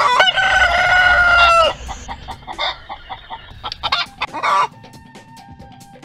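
Rooster crowing once, a long held call of about a second and a half that falls slightly at the end, followed by hens clucking and a shorter call about four seconds in.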